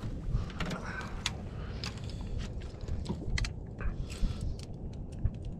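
Scattered small clicks and rattles over a low rumble as a chain pickerel is handled and unhooked in a landing net.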